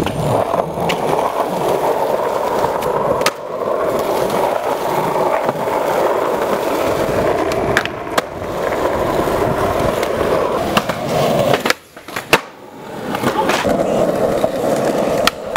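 Skateboard wheels rolling over concrete, broken by several sharp clacks of the board popping and landing, with a grind along a concrete ledge about eight seconds in. The rolling drops out briefly about twelve seconds in, then picks up again.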